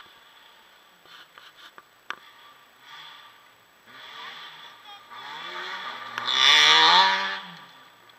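Rally car's engine revving as the car accelerates through a gravel stage and passes close by, its pitch climbing and then dropping. It is quiet for the first few seconds, grows from about four seconds in and is loudest just before the end.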